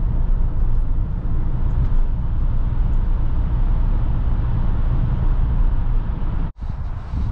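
Steady low rumble of engine and tyre noise heard inside a car's cabin while driving into and through a road tunnel. It cuts off abruptly about six and a half seconds in, giving way to quieter outdoor sound.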